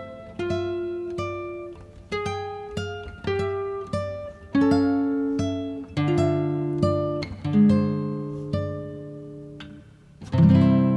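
Slow instrumental acoustic guitar music: single plucked notes and chords, each left to ring, closing on a louder strummed chord near the end that rings on.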